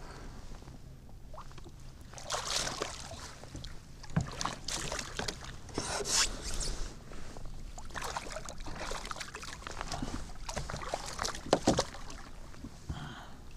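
Small striped bass splashing at the water's surface beside a kayak as it is pulled in by the line, in irregular bursts of splashes with sharp clicks.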